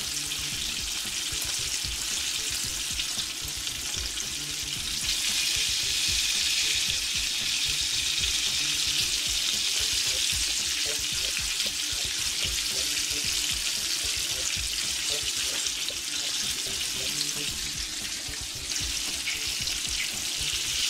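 Flour-breaded chicken wings frying in a pan of hot oil: a steady sizzle, a little louder from about five seconds in until near the end. Underneath are soft knocks and rustles of wings being tossed in a plastic tub of flour.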